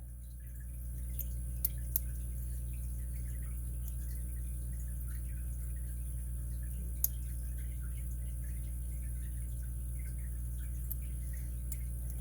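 Light metallic clicking and scratching of lock-picking tools working inside a Master 220 padlock's core, with a few sharper clicks, over a steady low hum.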